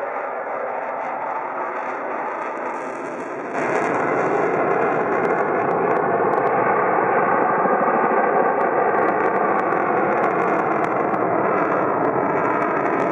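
Jet noise from a Eurofighter Typhoon's twin turbofan engines as it flies past: a steady rushing noise that gets suddenly louder about three and a half seconds in and stays loud.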